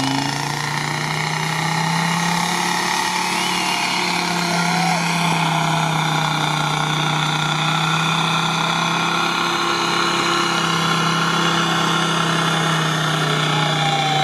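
Off-road prototype's engine running at steady, unchanging revs with a droning note as the buggy wades slowly through deep water, pulling poorly.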